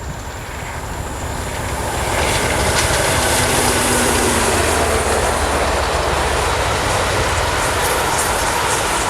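A train running past, its noise building over the first two seconds and then holding steady.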